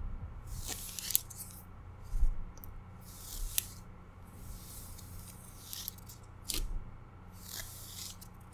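Fluffy faux fur rustled and scratched with long acrylic fake nails close to the microphone: a series of soft swishing rustles, with a few sharp nail clicks in between.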